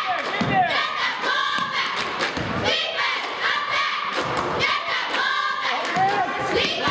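Basketball game sounds in a school gym: repeated thumps of the ball on the hardwood floor, mixed with shouts from players and the crowd.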